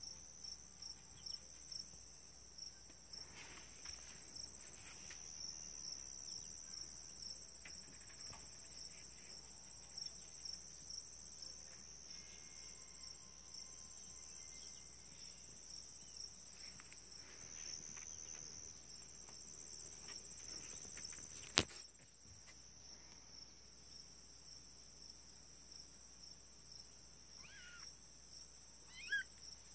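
Crickets chirping faintly and steadily in a fast, even pulse. A single sharp click about two-thirds of the way through, and a brief chirp near the end.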